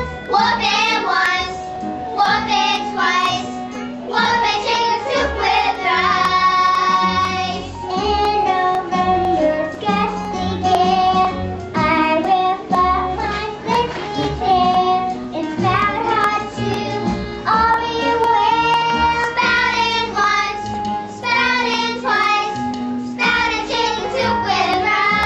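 A child singing a stage-musical song over instrumental accompaniment, with held, wavering notes and a steady bass line beneath.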